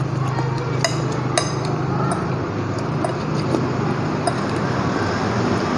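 Forks and spoons clinking a few times against ceramic plates while eating, over a steady low background hum.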